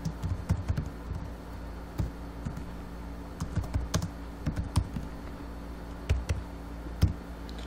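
Computer keyboard being typed on, keys clicking in short irregular runs with pauses between them, over a faint steady low hum.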